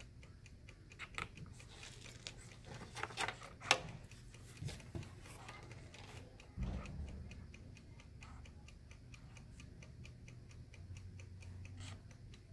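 Marker writing on paper: faint, irregular scratches and taps, over a steady quick ticking. A soft low thump comes about six and a half seconds in.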